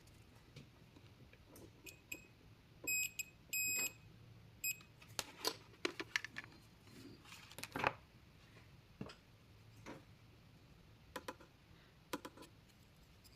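Two short high electronic beeps about half a second apart, then a brief third one, from an electronic workbench instrument. Scattered small clicks and taps of tools being handled run through the rest.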